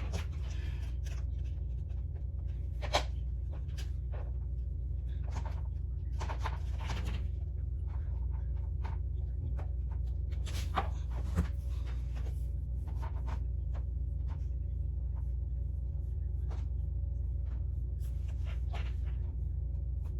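Scattered light clicks, taps and rustles of small fidget toys being picked up and set down one by one as they are counted, over a steady low hum.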